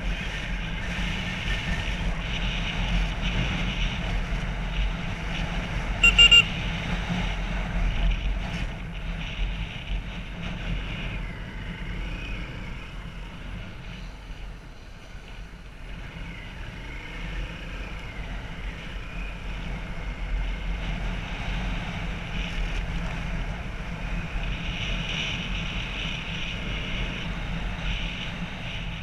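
A motorbike engine running steadily while riding, with wind buffeting the onboard microphone. It gets quieter for a few seconds around the middle, and a brief high beep sounds about six seconds in.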